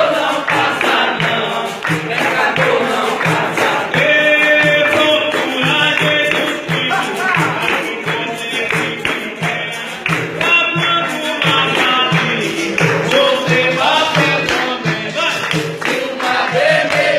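Capoeira roda music: berimbau and pandeiro keeping a steady beat under group singing.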